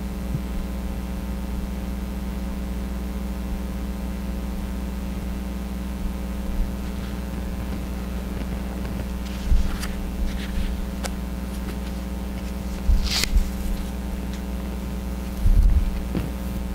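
Steady low room hum with several fixed tones underneath, and a few brief faint rustles and soft knocks in the second half.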